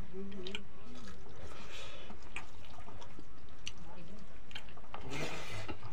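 Eating sounds: wet mouth clicks and smacks of people chewing rice and dal eaten by hand, with fingers squishing the rice on the plate.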